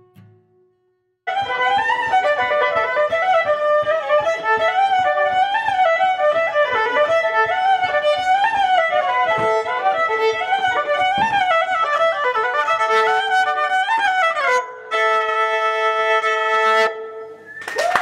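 Electric violin played with a bow, starting about a second in with a flowing melody that slides between notes, then holding one long note near the end.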